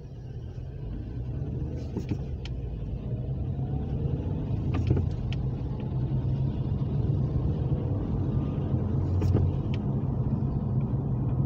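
Car interior noise as the car pulls away and speeds up: engine and tyre rumble growing steadily louder, with a faint whine rising in pitch over the first few seconds and a few light knocks.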